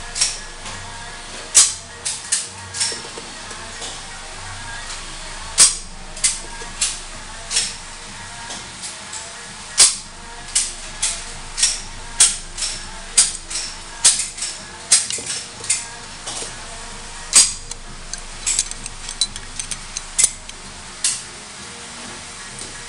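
Sharp, irregular metal clicks and taps of a steel pin punch and small parts against a Grand Power X-Calibur pistol slide as it is reassembled by hand, about one or two a second, over a low steady hum.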